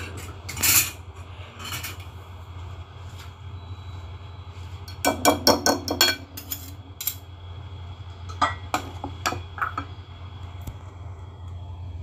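Metal wire whisk clinking and tapping against a glass mixing bowl of batter, with a quick run of taps about five seconds in and a few more near the end.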